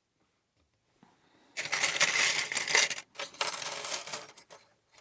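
Small metal tools, lockpicks and tension wrenches, clinking and rattling as they are rummaged through. It comes in two long stretches starting about a second and a half in.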